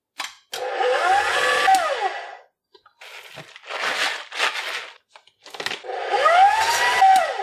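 Stand mixer motor run in two short bursts, each rising in pitch as it spins up and falling as it winds down, beating cookie dough. Between the bursts, a paper bag rustling as cacao nibs are poured into the bowl.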